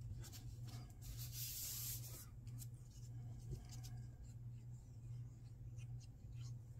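Paper handling and a glue stick rubbing over the back of a small cardstock cutout, a soft scratchy sound like writing, with light rustles and small clicks. The hissiest rustling comes about a second in; a steady low hum sits underneath.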